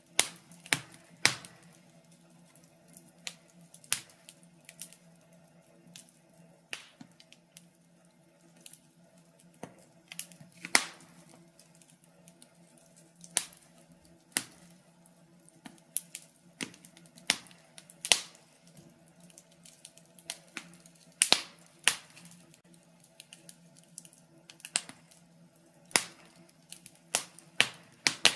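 Wood fire crackling in a fireplace: irregular sharp pops and snaps, one or two a second, over a faint steady hum.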